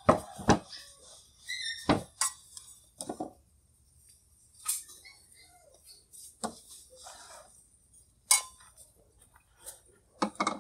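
Kitchenware being handled on a wooden table: a series of separate knocks and light clinks as bowls and plastic baskets are moved and set down.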